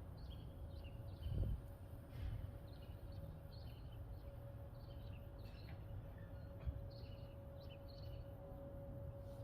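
Light wind gusting against the microphone in low rumbles, with small birds chirping in short, scattered calls and a faint steady hum underneath.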